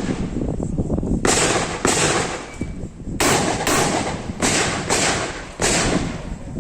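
Typhoon F12 12-gauge semi-automatic shotgun firing seven shots in quick succession, mostly in pairs about half a second apart, each report with a short ringing echo.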